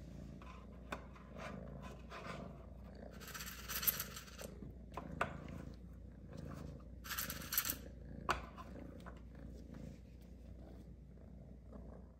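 A kitten purring while its claws scrape and tap at a glossy cabinet door, with two longer scratching bursts about three and seven seconds in and a few sharp clicks.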